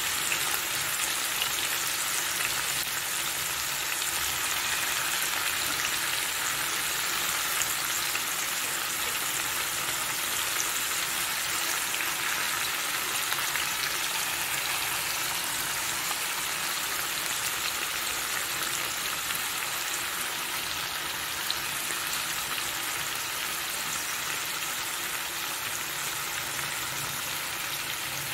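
Marinated chicken drumsticks frying in hot oil in a pan, sizzling steadily.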